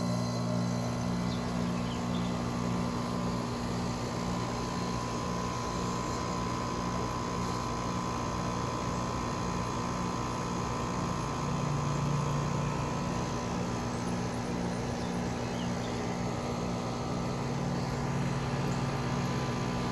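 Trane 4TWR4 5-ton heat pump outdoor unit starting up. Its compressor comes on right at the beginning with a low hum, then runs steadily together with the condenser fan.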